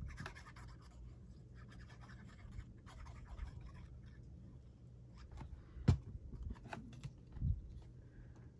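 Paper and card scraps being handled and slid about on a craft table, with scattered light clicks, a sharp knock about six seconds in and a duller thump a little later.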